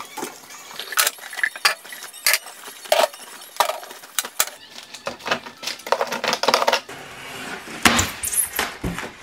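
Glass and plastic jars and sauce bottles being set down on a refrigerator's glass shelves: a string of sharp clinks and knocks. After that comes rustling handling noise, then a louder knock as the lid of a styrofoam box is lifted off near the end.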